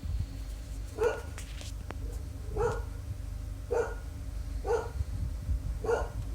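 A dog barking five times, short single barks about a second apart, over a steady low rumble.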